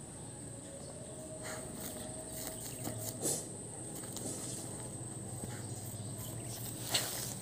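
Puppies digging in dry dirt with their paws: soft, irregular scratches and scrapes, a few louder ones about a second and a half in, around three seconds in and near the end. A steady high-pitched whine runs underneath.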